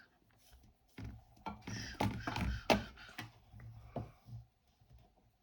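Irregular light clicks and knocks of objects being handled, with children's voices in the background.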